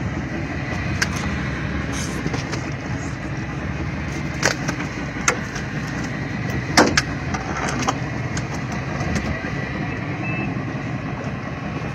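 Small fishing boat's motor running steadily, with a few sharp knocks about four and a half, five and seven seconds in.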